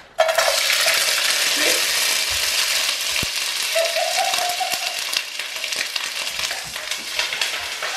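Sliced onions and peppers hitting hot olive oil in a frying pan: a loud sizzle that starts suddenly about a quarter-second in, full of small spitting pops, easing a little over the following seconds.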